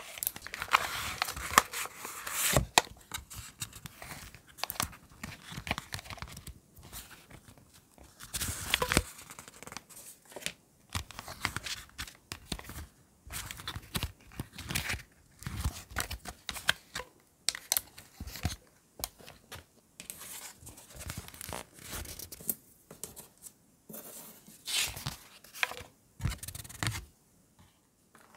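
A clear plastic storage pouch and paper sticker sheets being handled: irregular crinkling and rustling with short scrapes and taps, starting and stopping in quick strokes.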